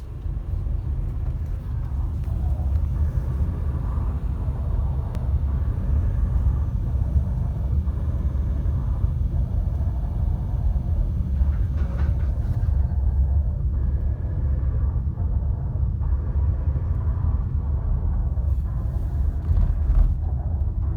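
Vehicle driving on a test run for gearbox noise, a steady low rumble throughout, with a couple of brief knocks near the end.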